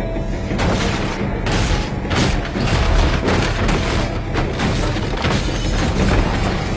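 Film sound effects of repeated heavy crashes and wood splintering, as a body is smashed through wooden walls, over deep booms.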